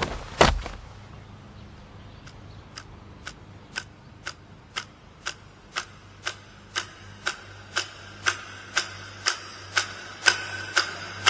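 Clock ticking about twice a second, starting about two seconds in and growing louder toward the end, over a faint low hum. Two louder knocks at the very start.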